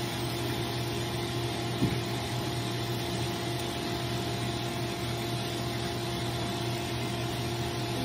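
Microbubble bath machine's pump running with a steady hum over a hiss of water, with one short knock about two seconds in.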